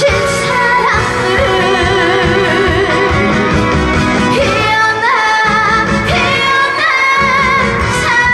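A young girl singing a bouncy, upbeat song live into a handheld microphone over an amplified backing track with a steady beat. Her voice wavers with vibrato on held notes, and the low beat drops out briefly twice in the second half.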